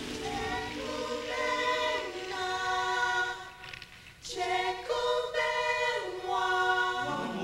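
Unaccompanied choir of voices singing slow, held notes that move up and down in steps, dropping away briefly a little past halfway before coming back in.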